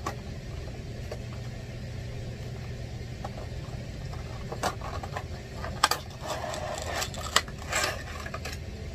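Cardboard toy box being handled and opened, with a clear plastic insert sliding out of it: scattered clicks and crinkles, busiest about six to eight seconds in, over a steady low background hum.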